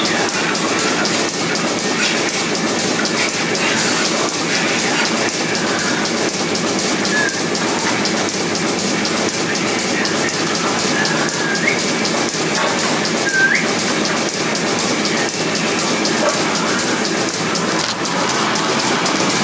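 Steady hissing and whooshing of the parlour's milking machines running, with three short rising squeaks in the second half.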